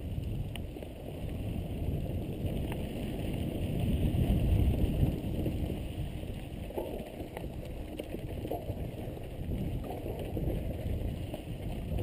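Wind buffeting a helmet-mounted camera's microphone as a mountain bike rolls down a dry dirt trail, with tyre noise on the dirt and a few sharp rattles and clicks from the bike.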